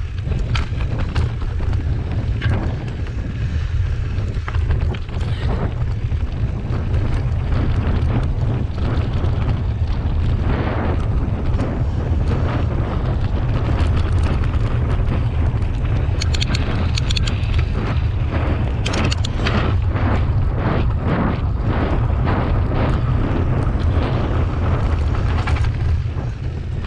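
Mountain bike riding along a dirt forest trail: wind buffeting the handlebar-mounted camera's microphone with a heavy rumble, over tyre noise on the dirt and frequent clicks and rattles from the bike over bumps, thickest past the middle.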